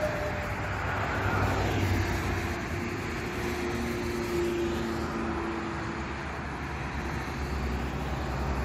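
Steady hum of a distant engine, with a faint held drone during the first half.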